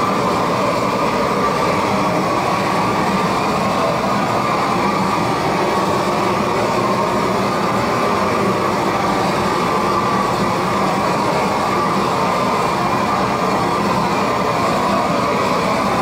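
Propane torch burner running steadily with a constant rushing noise while charring the underside of wooden roof boards and rafters.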